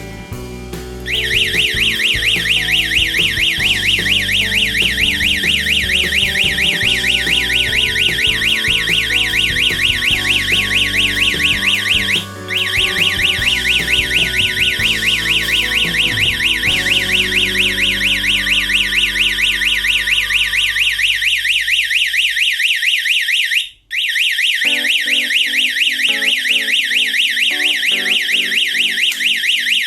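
Security alarm panel's siren sounding with a loud, high-pitched, rapidly pulsing tone. It cuts out briefly about twelve seconds in and again near the end, then starts again each time, matching the panel's repeating roughly ten-second alarm cycle while it stays triggered.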